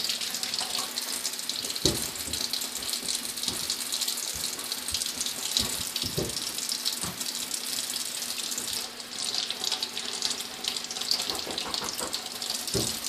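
Tap water running steadily into a sink, with a few soft knocks.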